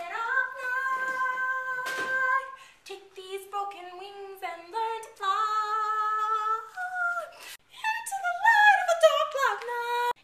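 One high voice singing without accompaniment: a long held note, then a string of shorter held notes, then a wavering slide down in pitch near the end.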